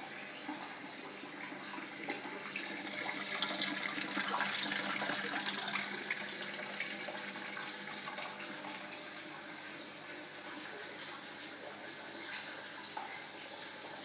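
Water pouring from a homemade waterfall filter into a turtle tank: a steady splashing that swells louder for a few seconds in the middle.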